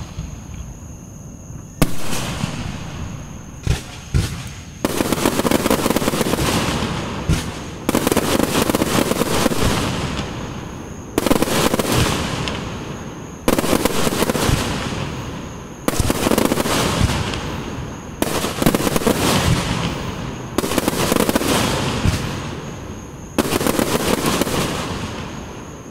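Aerial firework shells bursting one after another in a display: about a dozen sharp bangs a second or two apart. Each bang is followed by a crackling rush from the stars that fades over a couple of seconds.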